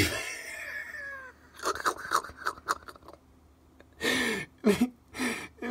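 A person's voice making a high, whining sound that slides down in pitch over about a second, followed by several short vocal bursts.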